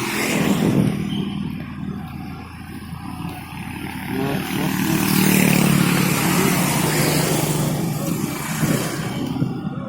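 Road traffic: motor vehicles running and passing, with engine hum and tyre noise that swell about a second in and again from about five to seven seconds in.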